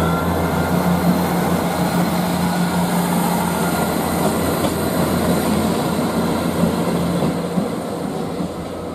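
East Midlands Trains diesel multiple unit running past: a steady diesel engine drone under the noise of wheels on rail, easing a little near the end.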